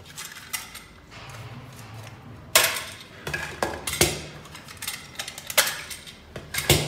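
Hard plastic covers being pulled off Thule roof-rack foot units and the parts set down on a wooden workbench: a string of sharp clicks and knocks, the loudest about two and a half seconds in.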